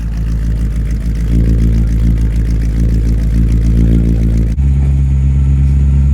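1976 GMC Motorhome's Oldsmobile 455 V8 running steadily, newly brought back to life after fuel-system leak repairs and a new fuel pump and filter. It picks up a little about a second in, and the tone shifts abruptly about four and a half seconds in.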